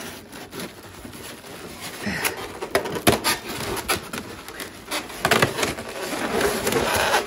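Polystyrene foam packing and plastic wrapping rustling, scraping and creaking as a drill press part is worked out of its packing box by hand, with many small knocks, busier and louder from about two seconds in.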